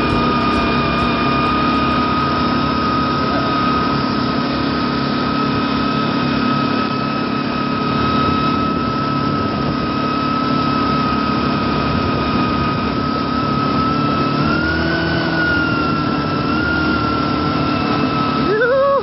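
ATV engine running steadily at cruising speed with a thin, steady whine. Its pitch rises slightly about fourteen seconds in, then wavers as the throttle changes.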